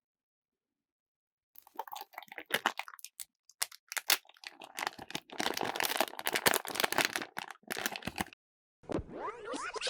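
Foil blind bag crinkling and tearing as it is handled and opened, a dense run of crackles and rustles. Near the end, after a short pause, comes a squeaky rubbing sound that rises in pitch.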